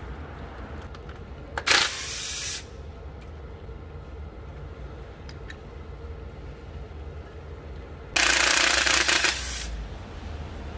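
Two hissing blasts of pressurised spray: a short one about two seconds in, and a longer, louder one of about a second and a half near the end, over a faint low hum.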